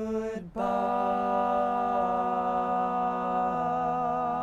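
Male a cappella group singing in close harmony without instruments: a short phrase ends, then the voices hold one long chord on "goodbye", the bass note stepping down about three and a half seconds in, with the upper voices wavering slightly near the end.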